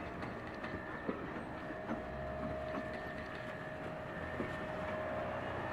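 Railroad passenger coach rolling slowly past on the track, its wheels giving a steady rumble with a thin steady squeal and a few scattered clicks over the rail joints.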